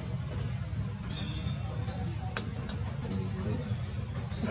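A bird calling: a short, high, rising chirp repeated about once a second over a steady low rumble. Two sharp clicks come a little past the middle.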